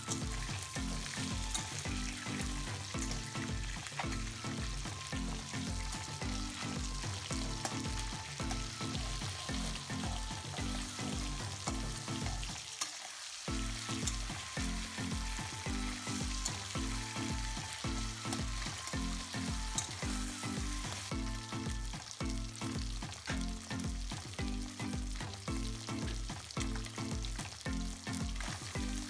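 Pieces of catla fish head sizzling as they fry in mustard oil in a wok, with a spatula turning them and clicking against the pan. A background music track with a steady beat runs underneath, dropping out briefly about halfway through.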